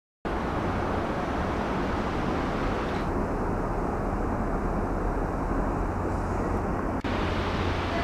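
Steady background rumble of distant traffic and city noise with a low hum. It drops out briefly about seven seconds in.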